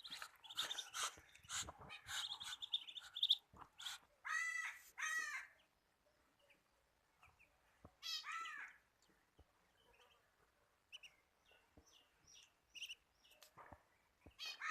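Birds calling: a quick run of high peeps in the first few seconds, then three louder, drawn-out arching calls, and later scattered faint chirps and small clicks.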